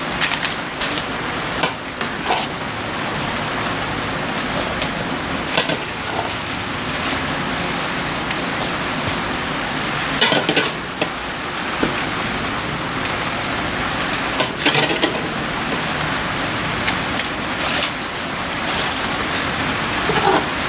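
Steady hiss with scattered clicks and rustles as chopped squirrel meat is handled on a banana leaf.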